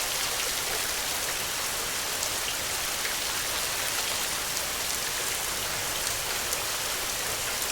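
Steady rain falling, with scattered sharper drop ticks over an even hiss.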